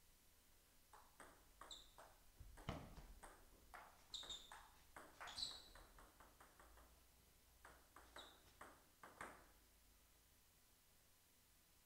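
Table tennis rally: the ball clicking off the paddles and bouncing on the table in a quick irregular series, with a few short high squeaks, then stopping about nine and a half seconds in as the point ends.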